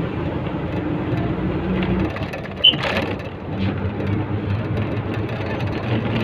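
Inside a moving bus: the engine running with road and rattle noise, the engine note shifting about two seconds in. A short sharp high sound cuts in briefly a little after.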